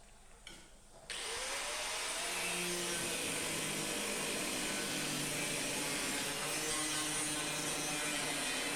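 A power tool starts suddenly about a second in and runs steadily with a wavering pitch, working on the car's body sheet metal.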